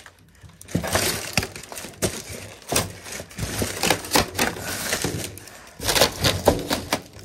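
Styrofoam packing blocks being pulled apart and broken off a boxed safe: irregular cracking and crunching, some strokes sharp and loud, with the plastic wrapping rustling.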